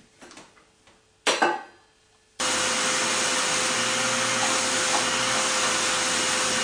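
A few faint rubbing sounds and a short loud knock. From about two and a half seconds in, a canister vacuum cleaner runs with a steady whine as its nozzle is worked over a bed.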